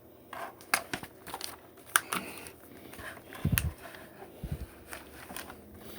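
Small plastic Lego pieces being handled and snapped together: scattered sharp clicks and light rattling, with a couple of soft low thumps in the middle.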